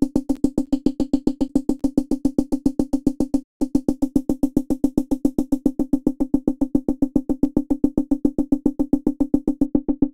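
Serum software synthesizer playing a pulsing pluck patch: one note repeated quickly, about seven notes a second. Each note carries a short hiss from the noise oscillator layer, which drops out near the end, and there is a brief break about three and a half seconds in.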